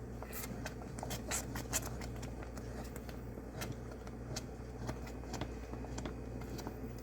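Wooden spoon stirring thick, bubbling pudding in a saucepan on the stove: faint irregular scraping and ticking, busiest in the first couple of seconds, over a steady low hum.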